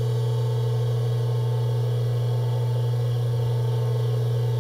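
Tsurumi HSZ2.4S submersible pump's electric motor running out of water, a loud, steady hum with a strong low tone. It is running normally with its newly fitted impeller.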